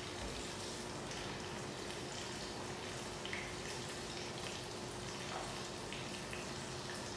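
Pork sizzling steadily as it fries in a pan, with a few light clicks over it and a faint steady hum underneath.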